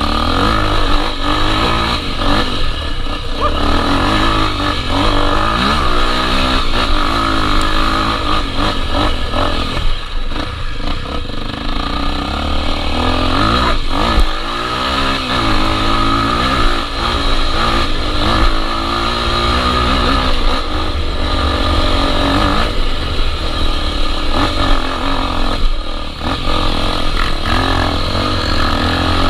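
Honda XR 250 Tornado single-cylinder four-stroke dirt bike engine running on a trail ride, its pitch rising and falling repeatedly as the throttle is opened and closed.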